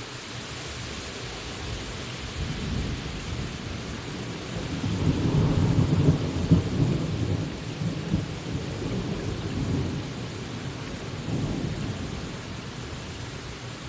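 Rolling thunder over steady rain: a low rumble builds a couple of seconds in, is loudest in the middle, then fades back, with a smaller swell near the end.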